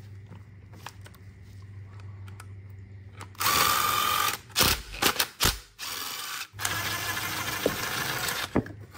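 Battery power tool spinning out the 10 mm bolts of a P-pump's throttle-linkage bracket through a socket on an extension: a short run of motor whir about three and a half seconds in, a few sharp clicks, then a longer run from about six and a half seconds.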